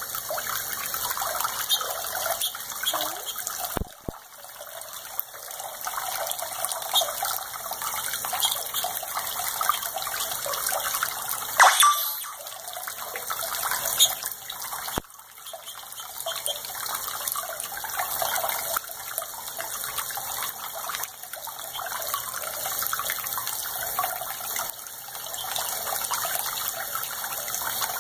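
Water running from a bathroom sink faucet, its stream splashing into cupped hands and the basin below: steady splashing with a few brief sharp sounds, the loudest about twelve seconds in.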